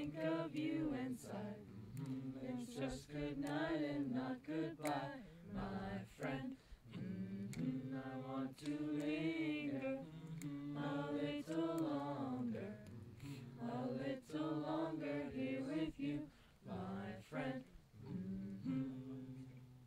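Several voices singing a slow camp song together without instruments, in harmony, with long held notes and brief breaths between phrases.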